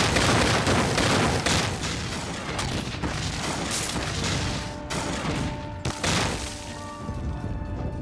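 A barrage of cannon fire and exploding shells: a rapid series of booms that starts suddenly, keeps up for about six seconds and then dies away, with music underneath.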